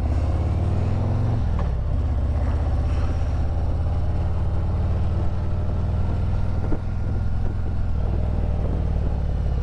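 Harley-Davidson Road Glide's V-twin engine and exhaust running steadily under way, with wind noise. The engine pitch climbs for the first second and a half, then drops. A single short knock comes near seven seconds in.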